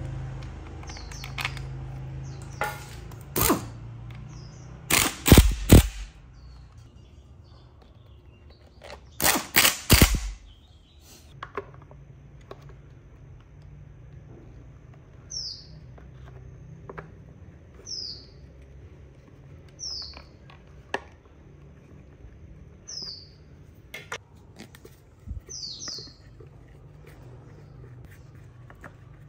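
Clicks and knocks of small metal and plastic parts and hand tools being handled while a brush cutter engine is reassembled, loudest in two clusters in the first half. Later a bird gives a single short falling chirp about every two to three seconds.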